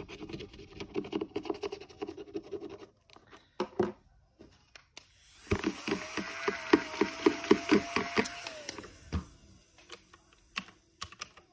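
Highlighter scratching back and forth on paper, colouring in a number in a savings challenge book. A few knocks follow, then about three seconds of rapid rhythmic scratching, about four strokes a second, with a faint steady whine.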